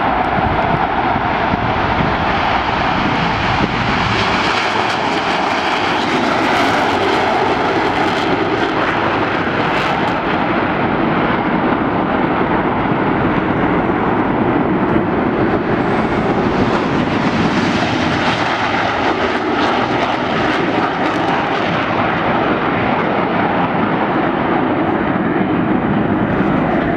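Formation of twin-engine F/A-18 Hornet jets taking off and climbing away, their engines making a loud, steady jet noise that holds level throughout.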